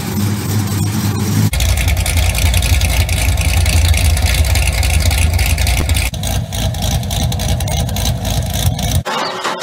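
Chevrolet C6 Corvette V8 exhausts running, several different cars one after another. The sound changes abruptly three times as one car's clip gives way to the next.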